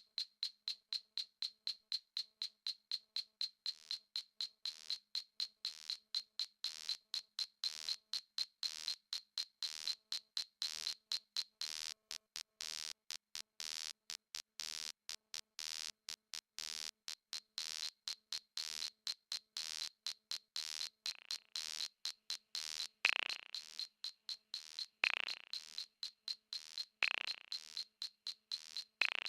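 Rapid, even electronic beeping, about four short high-pitched beeps a second. Near the end a sweep falling in pitch joins in every two seconds.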